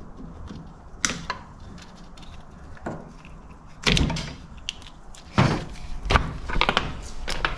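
Metal tool clinks and a few sharp knocks as the distributor is loosened and worked free of a race car engine, the loudest two about four and five and a half seconds in.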